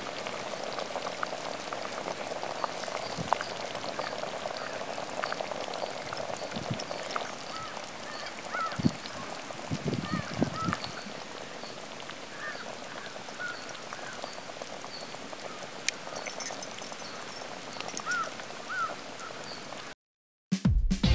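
Outdoor background with scattered short bird chirps and a few soft knocks, cut off abruptly near the end.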